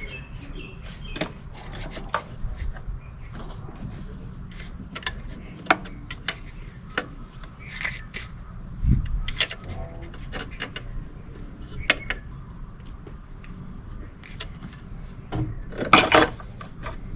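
Hand tools and metal parts clinking and tapping in scattered, irregular knocks, with a louder clatter near the end.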